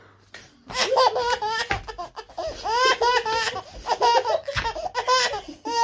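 A small child laughing in repeated bursts of high-pitched laughter, starting after a short pause.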